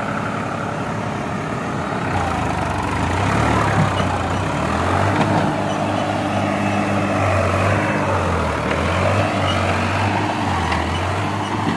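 New Holland 3600 tractor's diesel engine running under load as it tows a loaded trolley over soft, dug-up ground, with a backhoe loader's diesel running alongside. The engine note firms up about two seconds in and then wavers, dipping briefly a couple of times.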